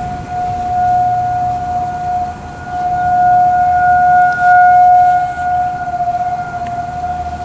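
Federal Signal 2001-SRN rotating outdoor warning sirens sounding a steady single-pitch wail, swelling and fading as the rotors turn, loudest about four to five seconds in.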